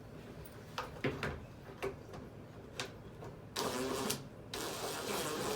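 A few light clicks and knocks of parts being handled, then a cordless drill or driver running in two short bursts, the second starting about a second after the first stops.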